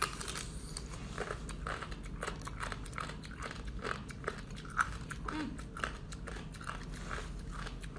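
Close-up chewing of crunchy jellyfish: many crisp crunches at an uneven pace of a few a second.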